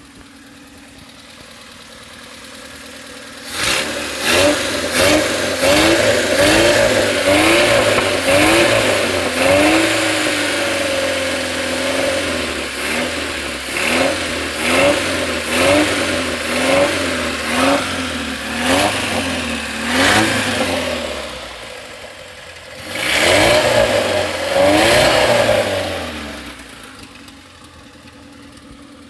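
1984 Ford Laser's inline-four engine running just after a top overhaul, quiet at first, then revved in repeated short blips from about four seconds in and settling back to idle near the end. A knocking clatter runs through it from the rocker arms, which have not yet been adjusted.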